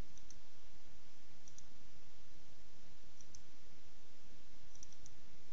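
Faint computer mouse button clicks, a few quick double-clicks, over a steady hiss.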